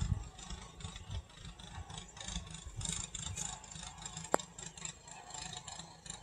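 Wind buffeting the microphone: an uneven, gusting low rumble, with a single sharp click about four seconds in.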